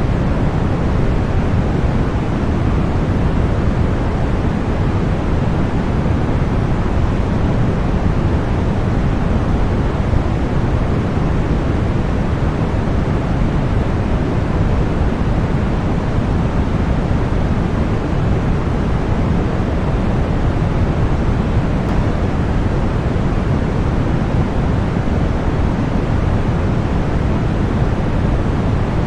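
Continuous generated white noise: a steady, even rush with no change at all, fuller in the bass than in the treble.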